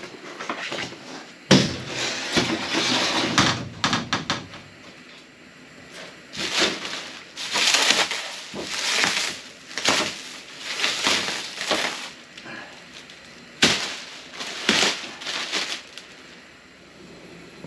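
Plastic wrap and foam packing sheets crinkling and rustling in repeated bursts as they are pulled off a crated rooftop tent, with two sharp knocks, one near the start and one later on.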